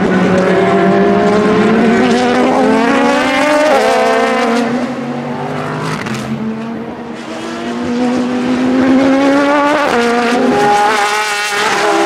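Race car engines accelerating hard past the track at full throttle, the pitch climbing and then dropping sharply at each upshift. A first car shifts up a few seconds in, and a second car climbs through the revs and shifts near the end.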